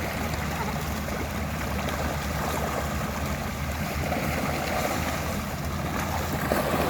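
Steady low motor hum under a continuous rushing, water-like noise.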